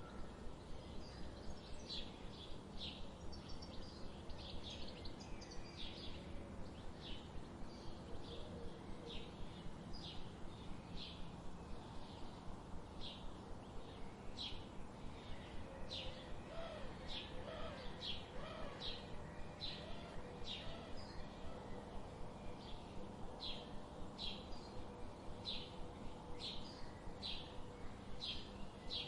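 Songbird chirping: short, high chirps repeated steadily, roughly once or twice a second, with a few lower whistled notes from another bird about halfway through, over a steady low background rumble.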